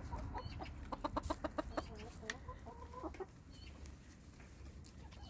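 Chickens clucking softly: a quick run of short clucks about a second in, then a few drawn-out, wavering calls.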